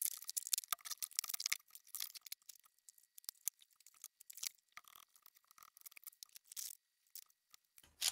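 Cardboard comic book mailer being opened by hand: faint, scattered clicks, crinkles and scraping of tape and cardboard, with a short louder rustle near the end.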